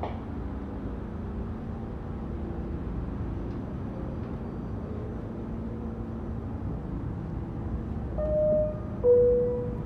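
Steady low hum and rumble inside an R46 subway car. Near the end a two-note descending door chime sounds, higher then lower: the signal that the doors are about to close.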